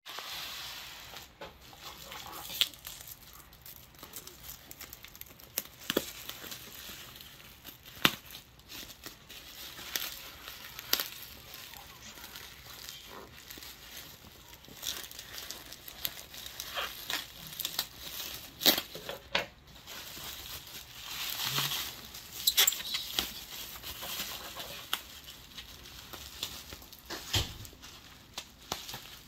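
Plastic bubble wrap crinkling and rustling as it is handled and unwrapped, with scattered sharp clicks.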